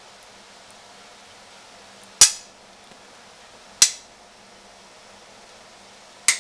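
Metal spoon knocking against a ceramic plate: two sharp clinks about a second and a half apart, and a third just before the end.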